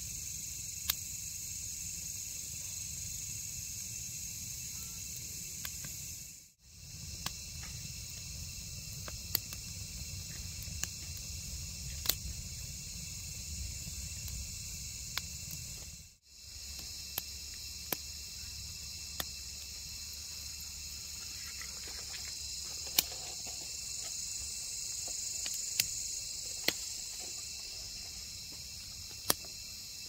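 Wood campfire crackling, with about a dozen sharp pops scattered through, over a steady high-pitched chorus of night insects such as crickets. The sound drops out briefly twice.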